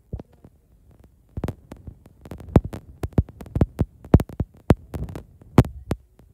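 Handling noise from a phone camera being moved and repositioned: a run of sharp, uneven knocks and clicks over a low rumble.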